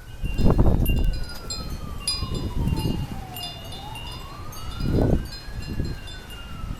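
Wind chimes ringing in gusty wind, with gusts buffeting the microphone, loudest near the start and again about five seconds in. A siren wails slowly up and down behind them.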